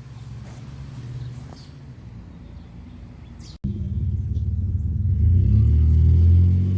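A faint steady low hum, then, after an abrupt cut about halfway through, a loud low engine rumble that grows louder.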